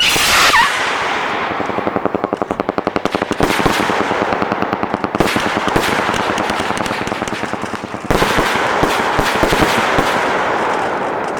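Aerial firework shells going off: a loud burst at the start and another about eight seconds in. Each burst is followed by long runs of dense crackling, which turn into rapid, evenly spaced pops a couple of seconds in.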